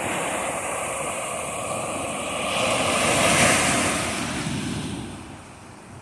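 Ocean waves rushing, one surge swelling about three seconds in and then dying away.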